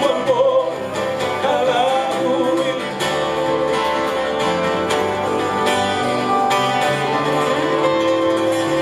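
Live band of two guitars and an electric bass playing a song, the strummed acoustic guitar to the fore. A singing voice carries over the first second or so, then the instruments play on between sung lines.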